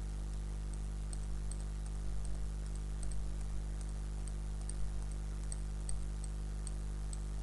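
Computer mouse clicking at irregular intervals, about two clicks a second, as points are placed one by one along a path, over a steady low electrical hum.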